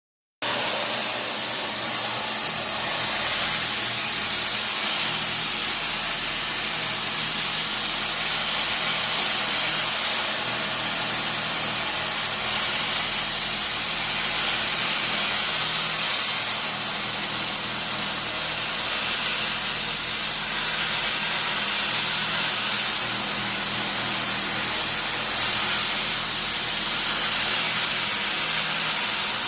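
CNC machining shop noise: a steady, loud hiss with a faint low hum beneath it, unchanging throughout.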